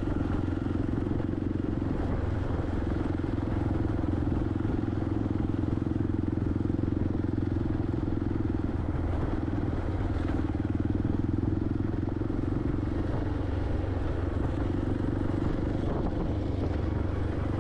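Motorcycle engine running at a steady speed while riding, an even drone that holds without change.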